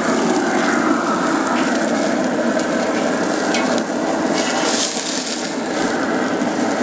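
Hamburger patties sizzling steadily on a very hot cast iron grill grate, with a few short scrapes of a metal spatula on the grate as the patties are flipped.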